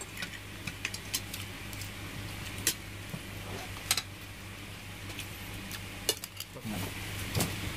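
Spoons and forks clinking now and then against ceramic plates as people eat, over a steady low hum.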